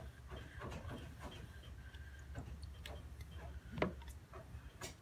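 Light scattered ticks and clicks of a spatula scraping and tapping soft butter out of a glass bowl into a stand mixer's plastic bowl, with one sharper knock about four seconds in, over a low steady hum.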